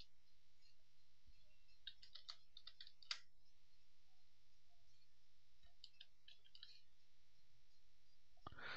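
Faint clicking from a computer mouse and keyboard, in two short clusters of quick clicks, over a low steady hum.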